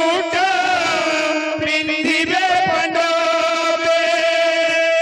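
Kirtan music: a held, wavering melodic line, sung or chanted, over strokes of large barrel drums played by hand.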